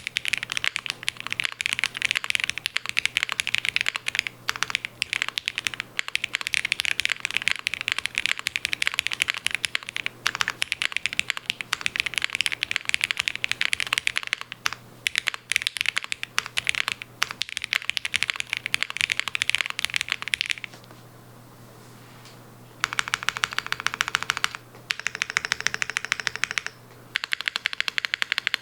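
Typing on a Space65 R3 custom mechanical keyboard with lubed Gateron Ink Black V2 linear switches in a POM plate and GMK keycaps: a fast, continuous run of keystrokes. The typing stops for about two seconds a little past two-thirds of the way through, then resumes in short, fast bursts.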